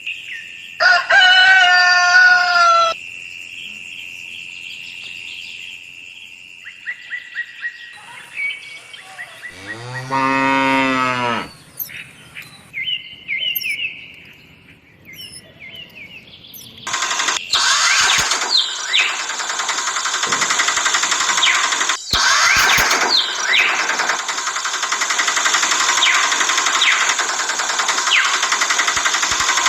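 A cow moos once, a long deep call about ten seconds in, after a shorter higher-pitched animal call near the start. From about seventeen seconds on, a steady hiss runs with birds chirping over it.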